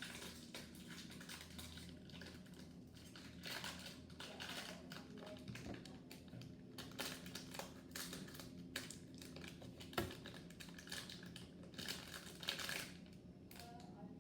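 Light clicks, taps and rustling as small plastic toy pieces, including a toy cup, are handled and opened, with one sharper click about ten seconds in.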